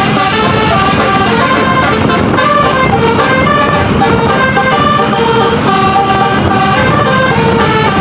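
Bus telolet horn of the Basuri type, a set of tuned air horns playing a melody of quick stepped notes without a break, over a rumble of engine and road noise.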